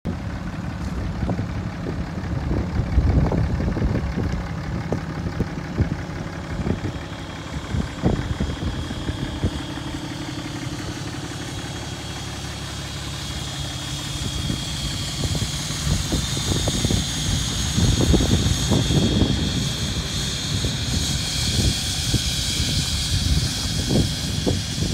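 A Dodge Ram 2500's 6.7-litre Cummins turbo-diesel engine idling steadily, with irregular rumbles of wind on the microphone. A faint high whine grows stronger over the second half.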